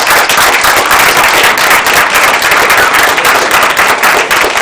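Audience applauding an award winner: loud, dense clapping from many hands.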